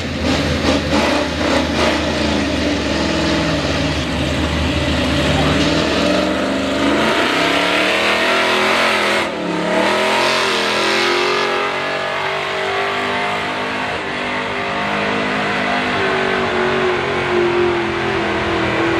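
Chevrolet pickup's stock gasoline engine at full throttle, pulling a weight-transfer sled. The pitch climbs, drops sharply for a moment about halfway through, then climbs again and holds high.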